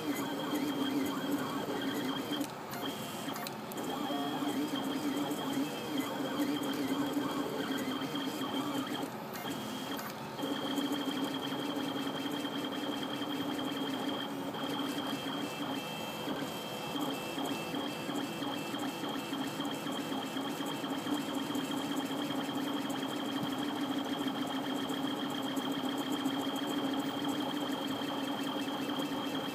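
MendelMax 3D printer running a print: its stepper motors whine in two steady pitches, one low and one high, with brief pauses now and then as the head changes moves.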